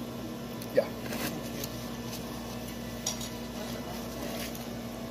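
Steady restaurant background hum with a few light clinks of tableware, the sharpest about a second in.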